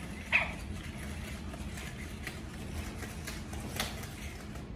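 Sony aibo robot dog giving one short electronic yip about a third of a second in, followed by a few faint clicks from its paws and joints as it walks across the floor.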